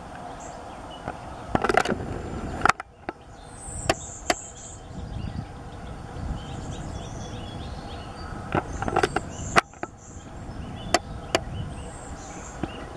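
Male Golden-winged Warbler singing its high, buzzy song three times. Sharp clicks and knocks, louder than the song, come in clusters about two seconds in and again about nine seconds in.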